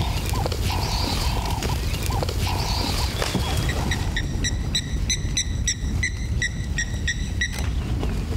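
A steady low rumble with repeated animal calls. In the first half there are short mid-pitched notes. Then, about four seconds in, a rapid, even series of high pulsed calls runs at about five a second and stops shortly before the end.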